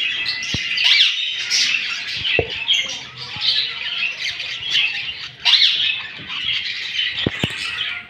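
Budgerigars chattering and squawking: a continuous jumble of overlapping chirps and quick rising-and-falling calls.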